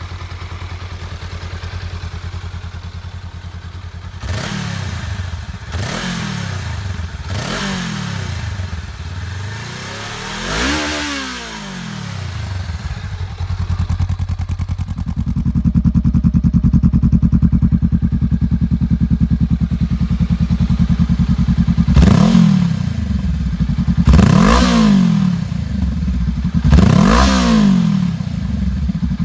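Honda Rebel 500 parallel-twin motorcycle engine idling with quick throttle blips: four revs in the first half, the fourth slower and higher, then a louder, deeper idle from about halfway with three more sharp revs near the end.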